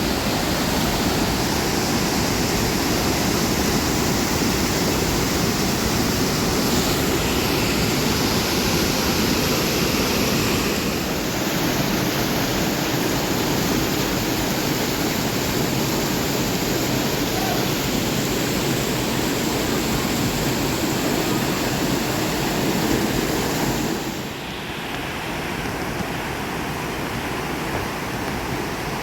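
Steady rush of fast-flowing water from a waterfall, a continuous full-range roar; it drops a little in level and changes character about 24 seconds in.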